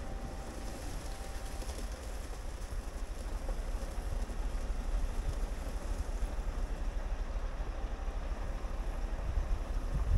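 Scania R520 timber truck's V8 diesel running at low revs as the truck and its log trailer reverse slowly across gravel: a steady low rumble that grows slowly louder as it comes closer.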